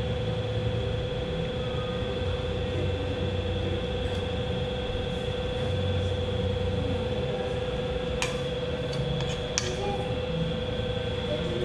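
A steady machine hum with a constant high whine over it, and two light clicks in the second half.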